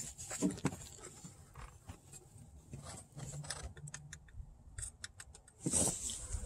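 Scattered light clicks and taps of a small hand tool and gloved fingers on hoses and fittings in a car's engine bay, with a louder clatter near the end.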